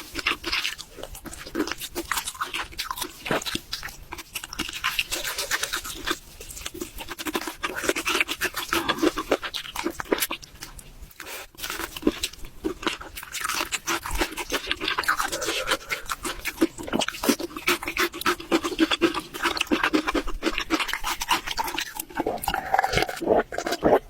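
Close-miked eating: a person chewing and crunching food, with dense, irregular mouth clicks that ease off briefly about halfway through.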